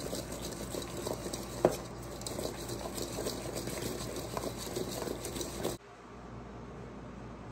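Oiled, seasoned potato cubes being shaken in a stainless steel bowl to coat them, a dense wet pattering that stops abruptly about six seconds in, leaving low room noise.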